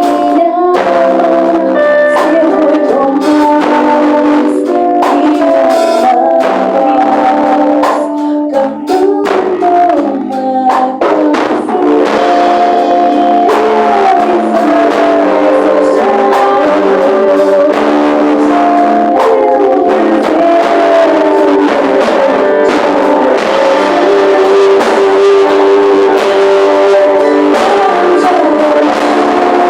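A worship band playing, with guitar and drums, and singing at times. The sound is thin, with little bass.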